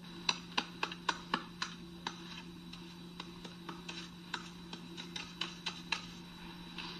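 Snow crunching in a quick, irregular run of short sharp crackles as it is scooped and packed by hand onto a snow-shelter mound. The crackles come about three a second at first, then sparser, over a steady low hum.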